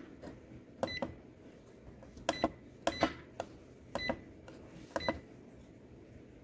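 Button presses on an Epson WorkForce WF-2850 printer's control panel. Each press gives a short, high electronic beep, five in all, about a second apart.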